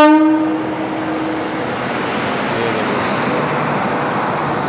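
A WAP-7 electric locomotive's horn cuts off in the first second. Then comes a steady rushing noise of the locomotive and its coaches rolling past alongside the platform.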